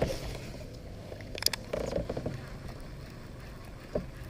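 Low water and hull noise on a fishing kayak, with one sharp click about a second and a half in and a few light knocks after it and near the end.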